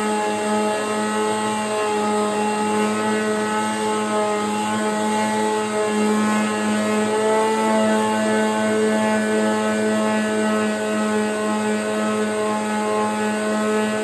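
Electric power sander running steadily with an even hum, sanding down hardened Bondo body filler on a hollow-core door.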